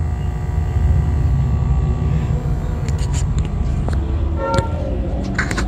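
Square-wave 12 V to 110 V DC-AC inverter running with no load after its burnt MOSFET transistors were replaced, giving a loud, steady buzzing hum with many overtones: the sign that it is oscillating and working again.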